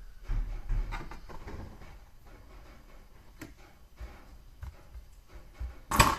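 Metal oven door parts being handled and fitted back together: scattered light clicks and scrapes, then one loud sharp knock near the end.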